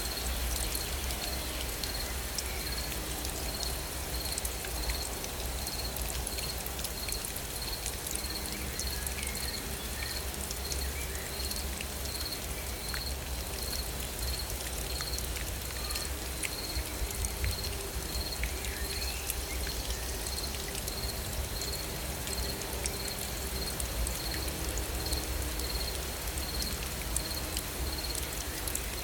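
Steady night rain, with individual drops ticking, over a low rumble. An insect chirps at a high pitch about once a second throughout.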